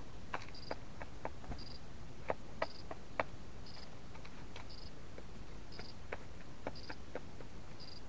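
A pheasant pecking at feed: irregular sharp taps, clustered in the first few seconds. A faint, short high-pitched peep repeats evenly about once a second.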